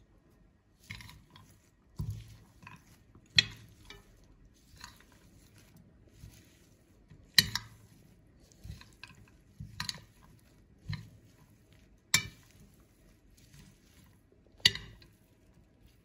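A leafy salad being tossed with a metal serving utensil in a glass bowl: soft rustling of leaves with irregular sharp clinks of metal on glass, four of them much louder than the rest.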